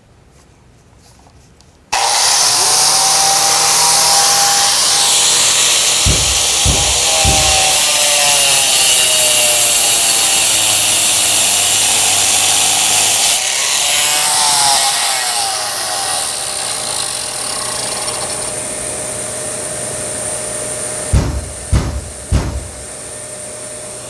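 A 4-inch hand grinder switches on about two seconds in and cuts into a stone tile, with a Bosch GAS 35 M AFC vacuum starting at the same moment through its tool-activated socket. After about fourteen seconds the cutting eases and the machines run on more quietly, with a few knocks near the end.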